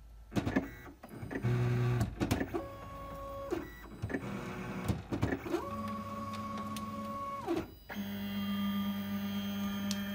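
MakerBot Replicator+ 3D printer's stepper motors moving the axes into position as it gets ready to print: a series of whining moves with clicks between them, each whine rising as it starts and falling as it stops, the longest lasting about two seconds. From about eight seconds in, a steady low hum takes over.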